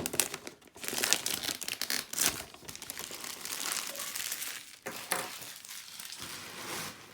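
Packaging crinkling and rustling as a box is being unwrapped by hand, with many sharp crackles throughout.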